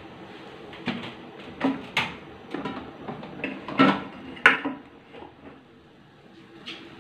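A few sharp metal knocks and clatters, a ladle against a metal wok, over a faint steady low hum; the loudest come around four seconds in, then it quiets down.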